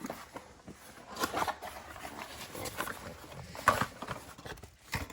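A product box and its packaging being opened and handled: scattered rustling, clicks and light knocks, with one sharper knock about two-thirds of the way through.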